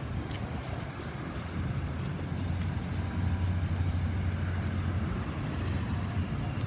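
Low, steady rumble of a Boeing 737-800's CFM56-7B jet engines passing overhead, growing louder about a second and a half in.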